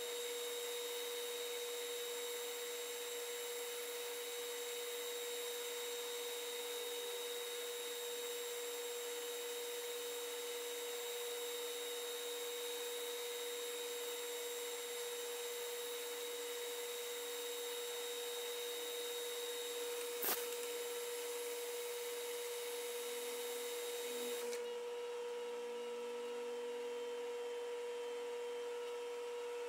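Metal lathe running while turning a slender brass rod: a steady whine of fixed tones over a hiss, with one short click about two-thirds of the way through. Some five seconds before the end the hiss drops away and the whine carries on.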